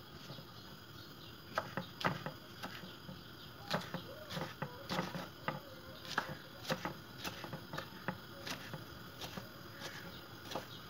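Kitchen knife chopping green bell pepper on a wooden cutting board: irregular light knocks of the blade striking the board, about two a second, beginning about a second and a half in.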